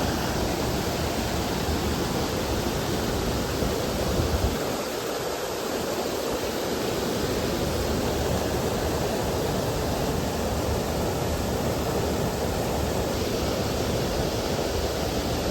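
Waterfall rushing: a steady roar of falling water with a low rumble that eases for a couple of seconds about five seconds in, then returns.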